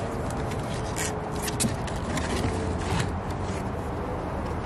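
Cardboard shipping box being opened and handled: a few short scrapes and rubs of the cardboard flaps, over a steady low background hum.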